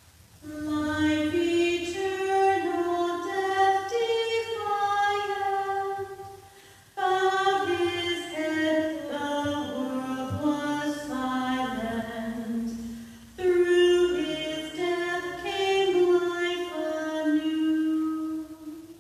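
A hymn verse sung unaccompanied by voices on one melodic line, in three phrases of held notes with short breaks between them.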